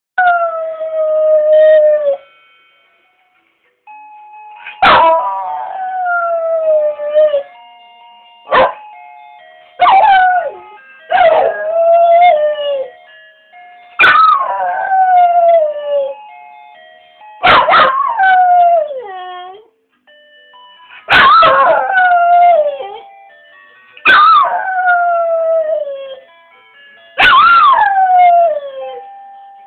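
French bulldog howling along to a simple tune: about ten drawn-out howls, each starting high and sliding down in pitch, a second or two apart, with the tune's short steady notes heard between them.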